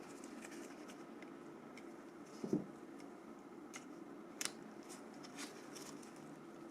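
Faint handling sounds of small phone parts: a soft knock about two and a half seconds in, then a few light clicks.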